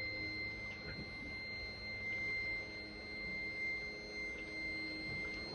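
Steady high-pitched electronic buzzer tone, held without a break: the Yamaha outboard's warning buzzer sounding with the key switched on, before the engine has been started.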